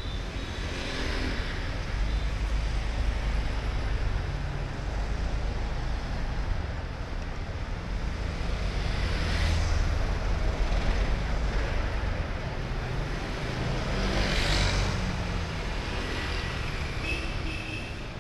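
Street traffic: a steady hum of vehicles on the road, with two louder vehicles passing close by about halfway through and again a few seconds later.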